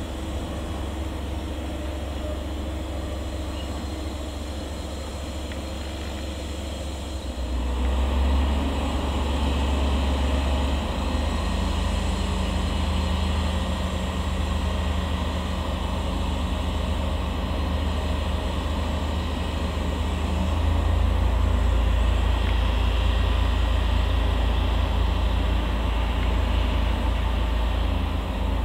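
Diesel shunting locomotive's engine running steadily, then throttling up about seven seconds in as it moves off slowly with its freight wagons. The engine note steps up again about twenty seconds in.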